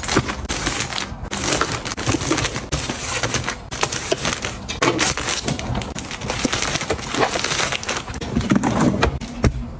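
Plastic-wrapped soft packs of facial tissue rustling and crinkling as they are pushed into rows in a drawer, with frequent light taps and knocks as the packs bump each other and the drawer sides.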